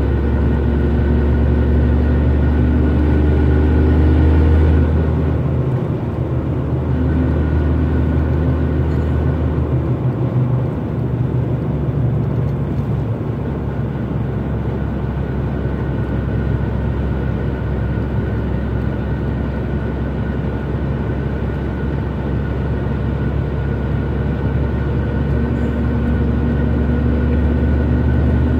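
12-valve Cummins diesel engine heard from inside the cab while driving, loudest about four seconds in. It drops off about five and again about ten seconds in, consistent with shifts of the six-speed manual gearbox. It then runs at a steady cruise, building again near the end.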